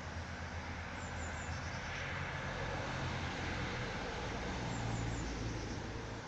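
Robotic lawn mower running as it drives over grass, a steady low motor hum with a hiss over it; the hum shifts a little about five seconds in as it turns.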